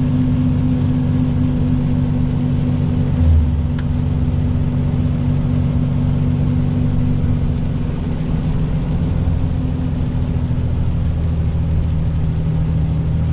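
Heavy truck's diesel engine running at a steady drone inside the cab while driving on a wet highway, with a constant hiss of tyres and rain. There is a low thump about three seconds in.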